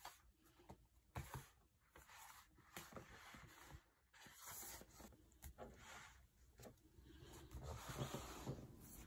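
Faint sound of hands sliding and handling paperback coloring books on a wooden table: soft brushing slides of the covers across the wood, with a few light taps, the longest slide near the end.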